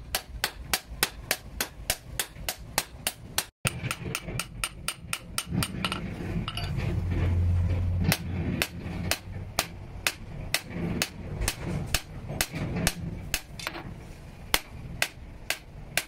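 Hammers striking a red-hot blade of chainsaw-blade steel on a steel post anvil: a steady run of sharp metal-on-metal blows, about three a second.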